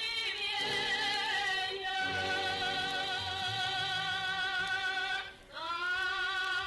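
Music: a high voice singing long held notes with vibrato in an operatic style. It breaks off briefly about five seconds in, then slides up into a new held note.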